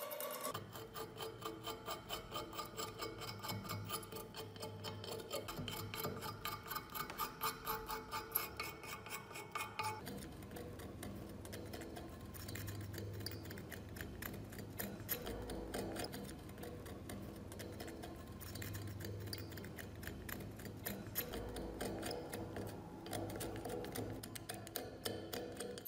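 Metal scraper rasping caked mud and rust off an old steel dagger in quick, regular strokes, a few a second. About ten seconds in the strokes change as the scraping moves from the blade to the crusted handle.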